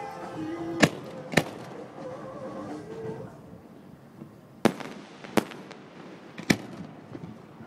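Fireworks going off: five sharp bangs, two close together about a second in and three more spread over the second half.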